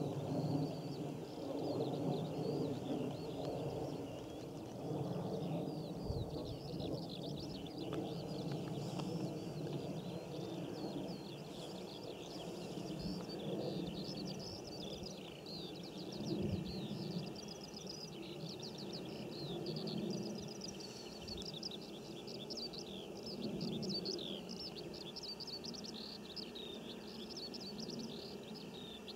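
Birds chirping and calling continuously, many short rapid notes, busier in the second half, over a steady low background rumble of open-air noise.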